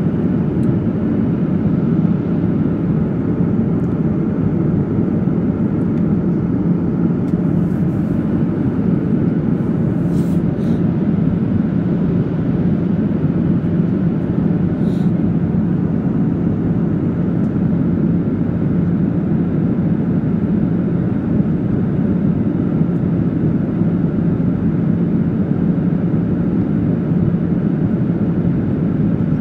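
Steady in-flight cabin noise of a Boeing 737-800: its CFM56 jet engines and airflow make an even, unbroken roar with a steady low hum in it. A few faint clicks come through about a third and halfway in.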